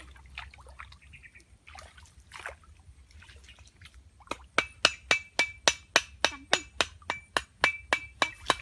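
Shallow stream water splashing lightly as hands and a woven bamboo fish trap are worked in it. About halfway through, a loud, perfectly even series of sharp metallic clicks starts, about four a second, and takes over.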